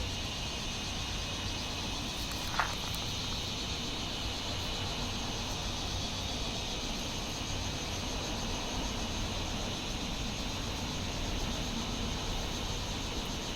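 Steady background hiss, brightest in the upper-middle range, with one faint click about two and a half seconds in.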